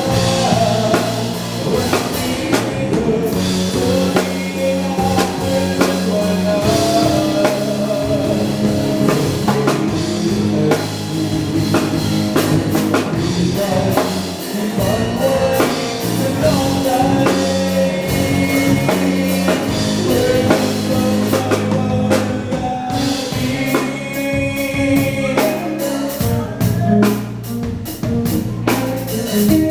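Live band playing a song, with a singer over a drum kit and other instruments keeping a steady beat.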